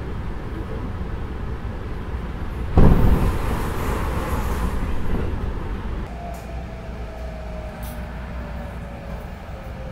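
Inside a Sanyo Electric Railway local train running with a steady rumble, broken about three seconds in by a sudden loud rush of noise that fades over a couple of seconds. From about six seconds in, a single motor whine falls slowly in pitch as the train slows.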